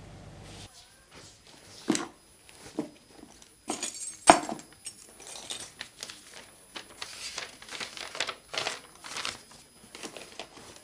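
Handling noise of a sheet of paper and a leather handbag being rummaged through: rustling and crinkling with scattered small clicks and knocks, the sharpest about four seconds in.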